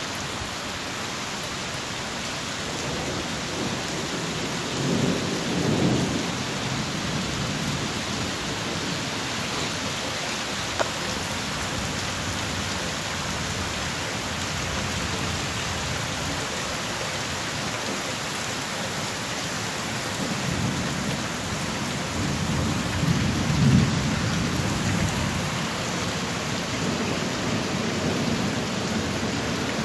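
Heavy rain pouring steadily onto a flooded street during a thunderstorm, with low rumbles of thunder about five seconds in and again, longer and louder, from about twenty to twenty-five seconds in.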